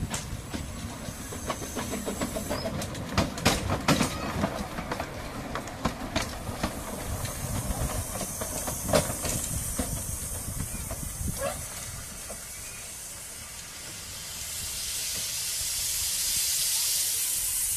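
1917 Kerr Stuart 2 ft gauge steam locomotive moving slowly, with repeated clanks and wheel clicks over the rails. About fourteen seconds in, a loud, steady hiss of escaping steam rises.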